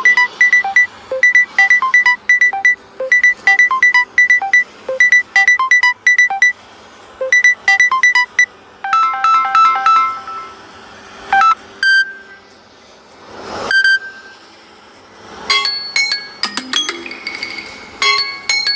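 Samsung Galaxy A55 ringtones and notification tones played one after another. For about nine seconds a rapid pattern of short high beeps repeats in a loop. Then come a few separate single chimes, and a new melodic tone starts near the end.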